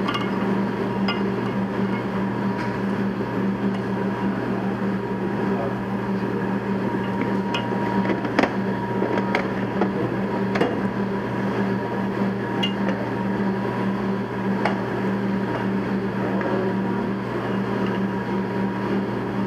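Steady low mechanical hum with a faint thin tone above it, and scattered light clicks and taps as an aluminium block is slid and set against the tip of a dial indicator on a granite surface plate.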